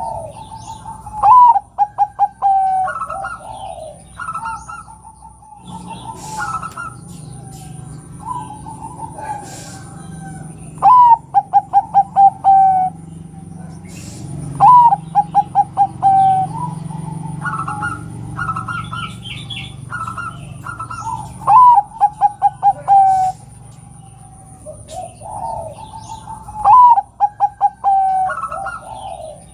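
Zebra dove (perkutut) cooing. There are five loud phrases about five seconds apart, each a short rising note followed by a quick run of staccato coos, with fainter coos between them.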